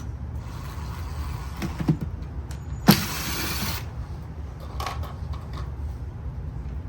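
A sharp click about three seconds in, then a brief whirr of a small electric motor lasting about a second, with lighter clicks and knocks before and after, over a low steady hum.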